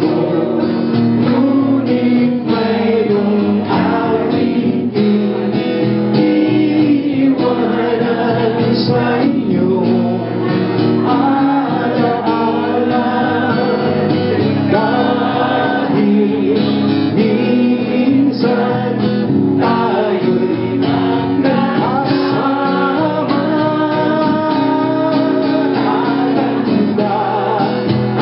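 A man singing into a microphone, accompanying himself on an acoustic guitar: a solo song with voice and guitar.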